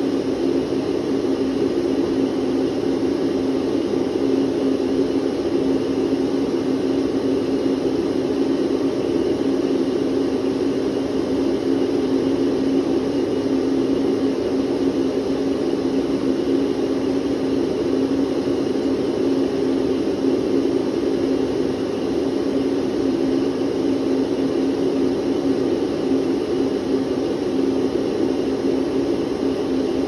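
Electric vacuum cleaner running steadily: an even, unchanging drone with a low hum in it.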